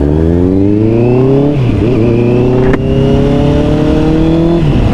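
Honda CBR650R's inline-four engine accelerating hard, its pitch climbing through one gear, dropping at an upshift about one and a half seconds in, then climbing steadily through the next gear until another upshift near the end.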